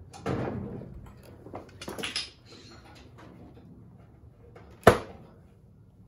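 Channel-lock pliers being worked on and then taken off the bottom edge of a Brookville steel door sill: handling noises in the first couple of seconds, then one sharp metallic click about five seconds in.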